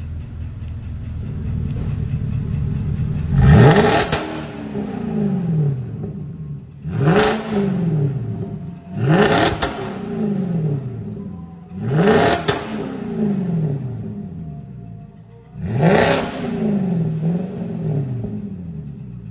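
BMW E60 M5's S85 V10 engine free-revving through an aftermarket valved sports exhaust. It idles, then is blipped sharply five times, each rev climbing fast and falling back to idle over a second or two; the first rev is the loudest.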